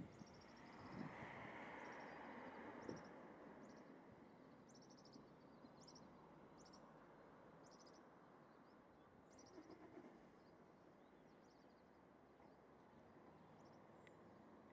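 Near silence: faint outdoor ambience with scattered short, high chirps, and two soft knocks in the first three seconds.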